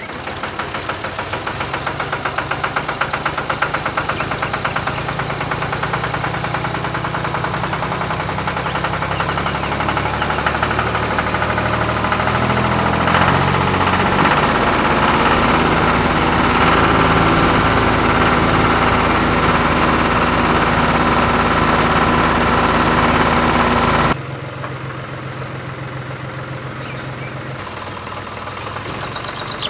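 Engine running steadily, with a low, even pitch that shifts slightly. About 24 seconds in it cuts off abruptly and gives way to a quieter engine sound that builds again near the end.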